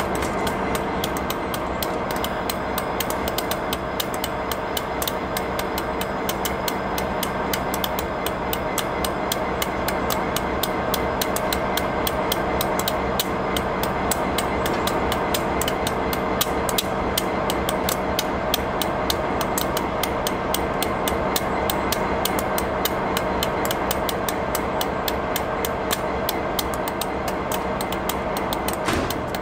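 Class 59 diesel-electric locomotive running as a light engine: its EMD two-stroke V16 engine drones steadily, with a fast, even ticking over it.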